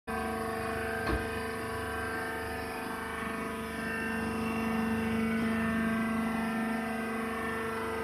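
Steady hum and whine of a hydraulic baler's power unit running, swelling slightly partway through, with a single sharp click about a second in.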